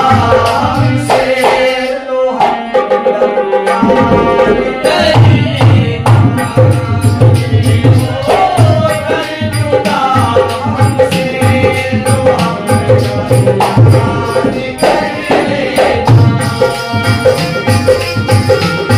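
Live Indian folk ghazal: men singing together over a harmonium, with a dholak beating a steady rhythm and a small hand rattle shaken. The dholak stops about two seconds in and comes back in about three seconds later.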